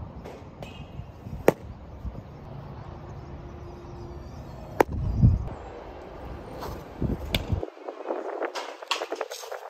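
Baseball bat hitting pitched balls in batting practice: two sharp cracks about three seconds apart, over wind rumbling on the microphone. Near the end, after a cut, a run of shorter taps and scuffs.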